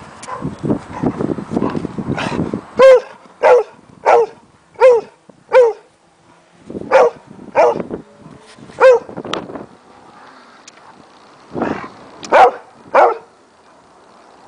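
A dog barking during play: a low growl in the first couple of seconds, then about a dozen short barks that drop in pitch, in three bursts (five barks roughly two-thirds of a second apart, then three, then three).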